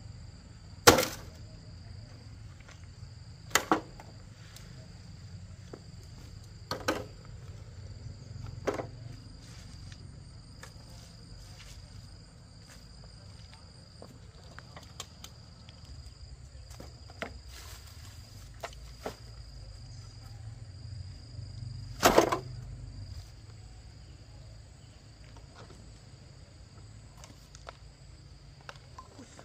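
A handful of sharp knocks of hand-tool work, spaced unevenly with a long gap in the middle, the loudest about a second in. Under them runs a steady, high-pitched drone of insects.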